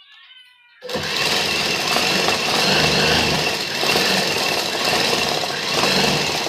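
Sewing machine running steadily, stitching down the folded side hem of a kurti as the fabric is fed through. It starts about a second in and keeps running until it stops at the end.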